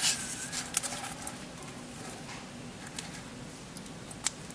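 Cables and plastic RCA plugs being handled and brought together on a tabletop: a cluster of rustles and clicks at the start, then scattered single clicks, with a sharp one near the end.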